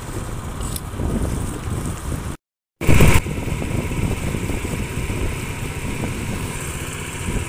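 Steady low rumble of a small boat's motor running. The sound drops out to silence for a moment about two and a half seconds in, then comes back with a brief loud burst.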